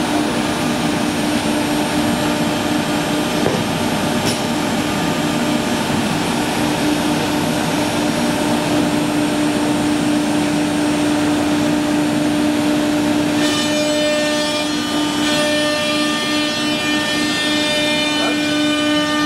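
1325 ATC CNC wood router running: a steady machine whine over broad mechanical noise, with higher whining tones joining about 13 seconds in.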